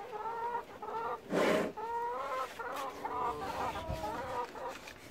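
Domestic chickens clucking, a run of short wavering calls that overlap. A brief loud noisy burst comes about a second and a half in.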